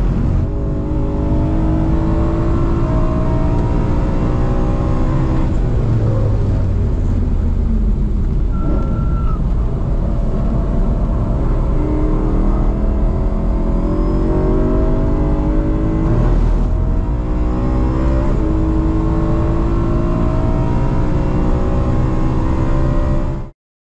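BMW race car engine heard from inside the cabin on a track lap, revving up and dropping back again and again as the driver shifts through the gears, over steady road noise. It cuts off abruptly near the end.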